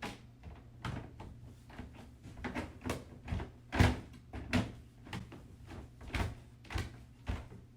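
Plastic pen wall panels clacking and knocking as they are slotted together and their pegs pushed into place: a dozen or so irregular knocks, the loudest about four seconds in.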